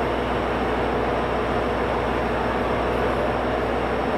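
Train running, a steady noise with faint even tones and a low hum, holding the same level throughout.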